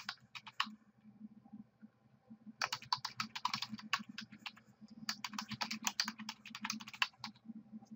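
Typing on a computer keyboard: runs of quick keystrokes, a short run at the start, a pause of about two seconds, then two longer runs with a brief break about four seconds in.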